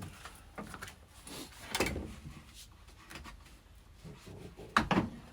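Clunks and rattles of a rivet nut tool kit being taken out and rummaged through, with a few sharper knocks near the end.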